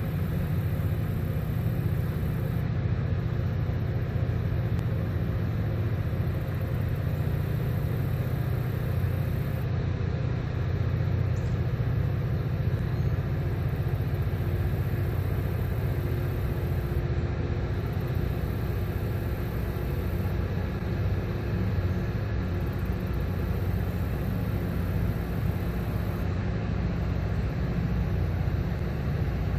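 Steady low rumble of a large towboat's diesel engines pushing a loaded barge tow upriver.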